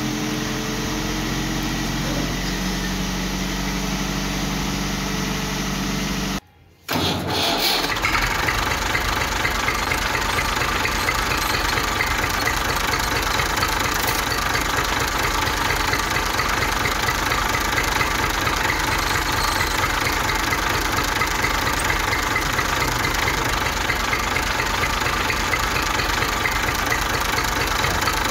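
An engine running: a steady low engine hum for about the first six seconds, a brief drop-out, then a louder engine running steadily with a fast, even chugging pulse.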